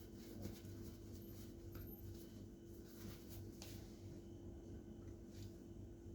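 Quiet background with a faint steady hum and a few light clicks and rubbing sounds of handling.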